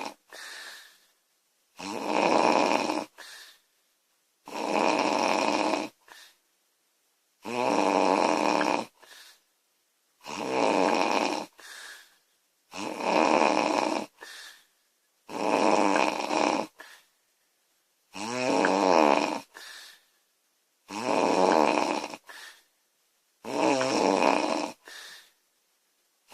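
Woman snoring loudly in a steady rhythm: nine long snores, one about every two and a half seconds. Each is followed by a short, quieter breath sound.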